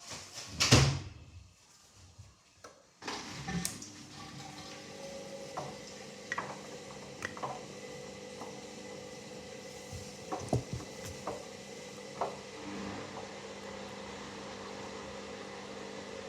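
Hoover Dynamic Next washing machine in its wash phase: after a thump about a second in and a brief lull, the drum motor starts turning about three seconds in with a steady hum, water sloshing and small knocks as the load tumbles.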